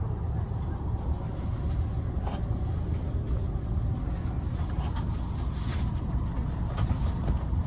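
Steady low rumble inside a passenger vehicle's cabin while it travels, with a few faint knocks.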